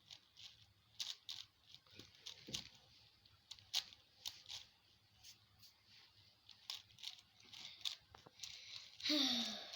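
Irregular plastic clicks and snaps of a 6x6 Rubik's cube's layers being turned by hand, several a second. A brief voice near the end.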